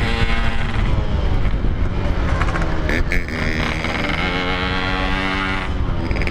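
Yamaha RX-King two-stroke single-cylinder motorcycle engine running under throttle while riding, its revs dipping and climbing again about three seconds in, with wind rumbling on the microphone.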